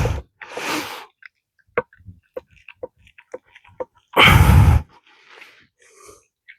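Light, sharp taps of a small hammer on a punch, about two a second, trying to drive a stuck part out of a Ford transmission. Two loud breathy puffs of air come through, one at the start and one about four seconds in.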